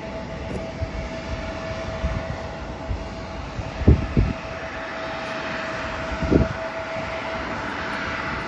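Jet airliner engines running in the distance, a steady rushing noise that grows louder over the last few seconds, over a constant hum, with a few short low thumps about four and six seconds in.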